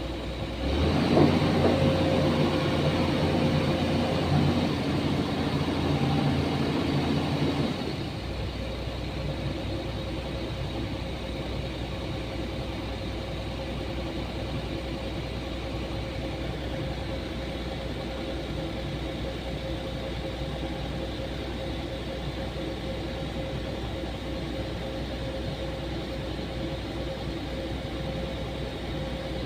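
Heavy machinery engine, most likely the excavator's, running loud for the first eight seconds or so, then dropping abruptly to a steady lower hum.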